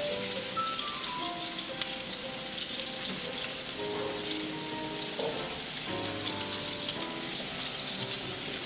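Potato pieces sizzling and crackling as they fry in hot oil in a pan, over soft background music with short held notes.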